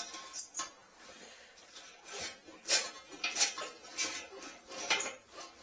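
Irregular clinks and clattering knocks of drain-cleaning tools being worked in a toilet drain to free a jammed comb, the loudest a little under three seconds in and again about half a second later.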